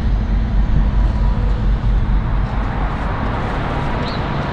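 Steady low rumble of road traffic and vehicle noise, even throughout, with no single sound standing out.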